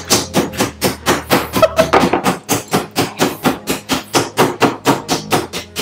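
Meat mallet pounding chicken breast through a plastic bag on a cutting board: rapid, even blows at about five a second.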